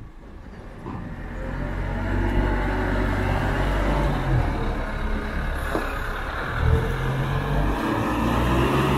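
JCB backhoe loader's diesel engine running under load as it works its front bucket of sargassum seaweed, getting louder over the first couple of seconds, its note rising and falling a few times.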